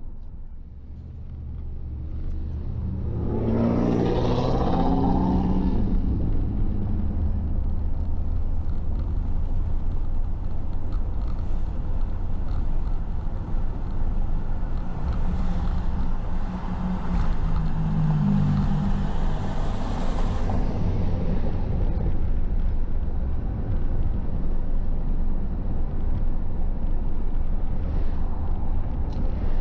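Car driving on city streets: steady engine and road rumble. The engine note climbs as the car pulls away and picks up speed about three seconds in, and rises again from about fifteen to twenty seconds.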